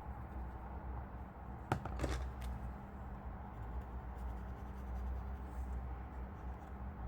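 A steady low background hum, with a quick cluster of light clicks or taps about two seconds in, typical of small craft tools being handled on a desk.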